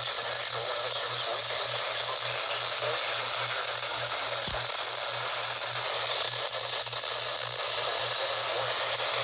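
Radio receiver static: a steady hiss with a low hum pulsing about four times a second underneath, and a single click about four and a half seconds in.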